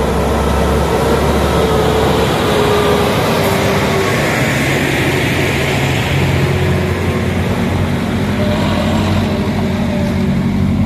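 Diesel trucks driving past on a bend: a Hino dump truck's engine pulling through the curve, then a Mitsubishi Fuso Canter box truck whose engine grows louder from about two-thirds of the way in as it passes close.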